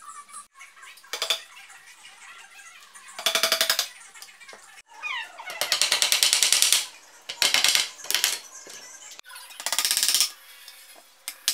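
Rubber mallet tapping on a window-screen frame near its corner, in several quick bursts of rapid blows with short pauses between.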